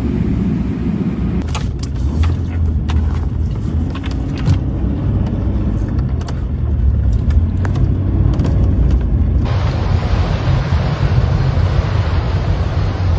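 Low rumble of a car driving in blizzard conditions, with scattered sharp clicks. About two-thirds of the way through it changes abruptly to a loud, steady rush of wind noise.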